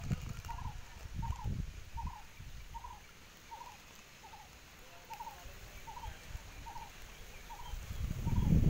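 Water sloshing and dripping as a cast net is lifted and hauled in by a man wading in a canal, loudest near the end. Over it a bird repeats one short call evenly, about three calls every two seconds.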